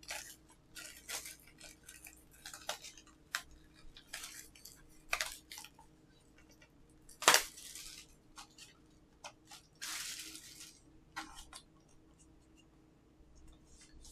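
A 4K UHD Blu-ray disc case and its cardboard slipcover being handled: scattered plastic clicks and short rustles, with one sharp snap about seven seconds in and a sliding rustle lasting about a second near ten seconds.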